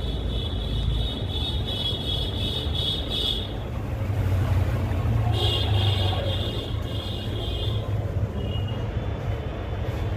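Pressure-washer pump running steadily, its water jet hissing on and off in three spells as it cleans a heavily dirty air-conditioner cooling coil.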